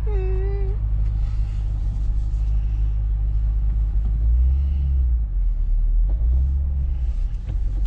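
Chevy SS's 6.2-litre LS3 V8 rumbling at low revs, heard from inside the cabin as the car is manoeuvred in reverse. The engine swells twice, around the middle and again a little later. A brief tone sounds near the start.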